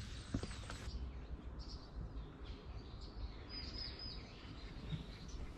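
Small birds chirping faintly in woodland, a few short calls scattered through, over a low steady rumble and a few soft footsteps on a stone path.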